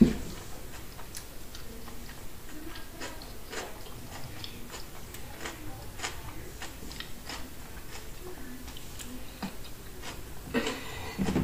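A person chewing a mouthful of fresh rice-paper spring roll with lettuce and cucumber: irregular small crunches and mouth clicks. A short voiced sound comes near the end.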